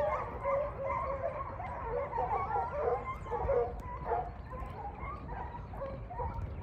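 A pack of drag-hunt hounds giving tongue: many overlapping baying and yelping calls with no pause.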